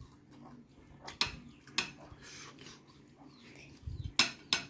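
Eating sounds: chewing and wet lip smacks with short sharp clicks, then a few louder clicks and a low thump near the end as a hand scoops food from a plate.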